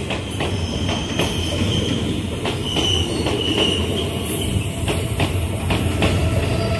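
Passenger coaches rolling past close by, wheels clicking and clattering over the rails in an uneven rhythm over a steady rumble, with a faint high wheel squeal.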